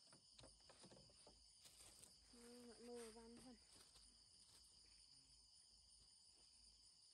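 Faint night chorus of crickets and other insects, a steady high trilling. About two and a half seconds in, a brief low hum of a voice lasts about a second.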